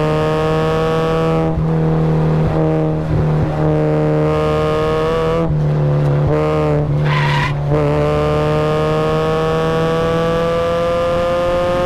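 Supercharged Mazda Miata engine under hard acceleration on track, its pitch climbing slowly. About a second and a half in, the pitch breaks and drops as the car lifts and slows for a corner. The tyres squeal briefly a little past the middle, then the engine pulls again with a steadily rising pitch.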